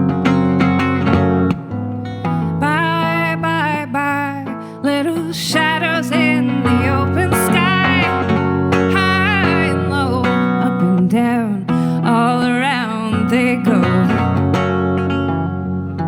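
Live acoustic guitar playing a folk song's instrumental passage, with a wavering high melody line over the guitar.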